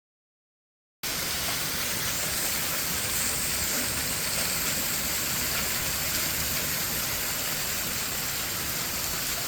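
Heavy rain pouring down in a steady, dense hiss that starts abruptly about a second in.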